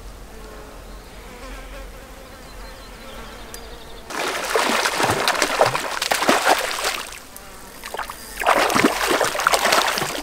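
A hooked brook trout thrashing at the water's surface in the shallows, in two spells of splashing: one starting about four seconds in, a short lull, then another near the end.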